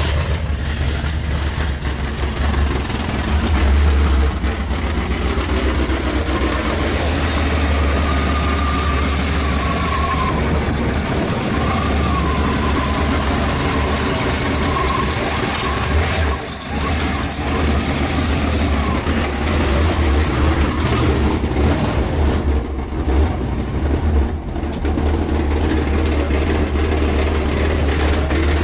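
Chrysler Cordoba's V8 engine running at a steady idle.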